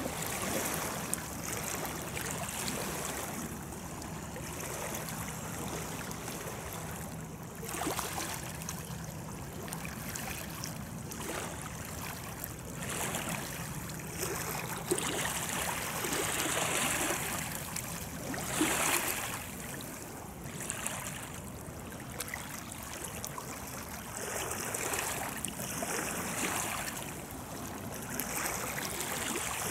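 River water lapping and splashing at the shore in uneven swells. Under it, a faint steady low hum from a distant diesel freight locomotive, which fades out about two-thirds of the way in.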